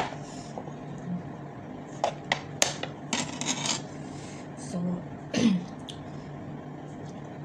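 Eating at a table: a few light clicks of tableware and a short rubbing rustle as food is picked from the dishes, with a brief low voice sound from the eater about five seconds in.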